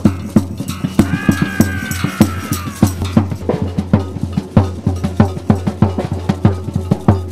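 Street samba-style percussion band drumming a fast, steady beat, many sharp drum strokes over a steady low drone. About a second in, a long high tone slowly falls in pitch over the drumming.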